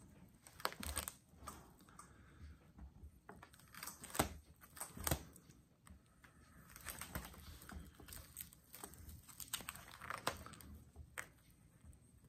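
Plastic binder sleeve pages crinkling and flapping as they are turned by hand, with scattered sharp clicks and soft rustles.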